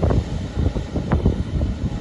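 Gusty wind buffeting the microphone in irregular surges, over the low rumble of a jet airliner's engines.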